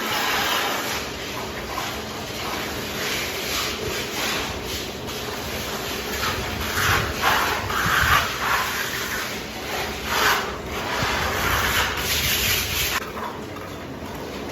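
Plastering trowel scraping and swishing across wet plaster in irregular strokes, loudest around the middle and easing off near the end.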